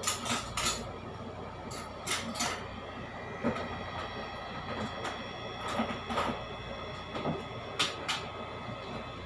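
Scattered light clinks and knocks of dishes, utensils and cupboards being handled, over a steady background hum with faint steady whining tones.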